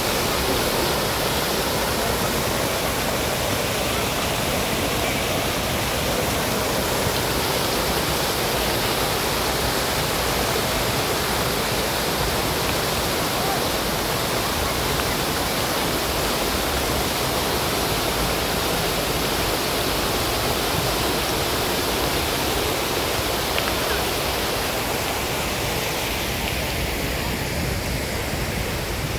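Water from a tiered fountain and its ring of arching jets splashing steadily into the basin, a continuous rushing wash. It grows a little fainter near the end.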